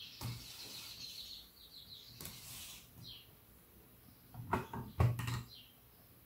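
Plastic Lego parts clacking together in a quick cluster about three quarters of the way through as the roof section of the model is lifted off. A bird chirps in the background.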